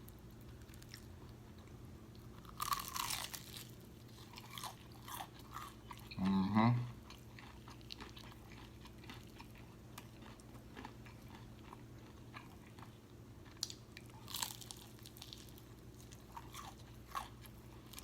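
Biting into and chewing crispy fried chicken close to the microphone: crunches near three seconds and again near fourteen and a half seconds, with smaller chewing clicks between. A short rising hum about six seconds in is the loudest sound.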